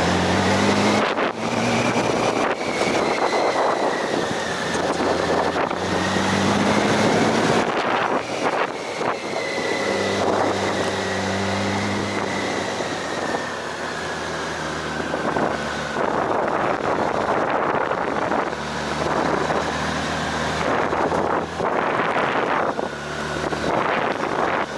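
Motorcycle engine running under way, its pitch rising and falling with the throttle several times, under heavy wind noise on the microphone.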